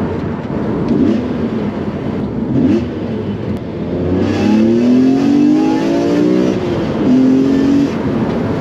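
BMW E46 M3's S54 straight-six, breathing through a carbon CSL-replica airbox, accelerating under load with its pitch climbing for a couple of seconds. It drops sharply at an upshift about six and a half seconds in, then pulls again at lower revs.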